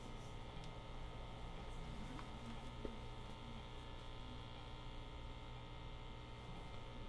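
Steady electrical mains hum over quiet room tone, with a couple of faint taps about two and three seconds in.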